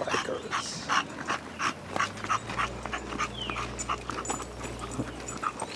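Bulldog panting hard, in rapid, regular breaths.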